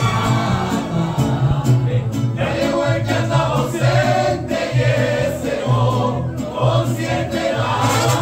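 Mariachi music: several voices singing together over a bass line that steps from note to note.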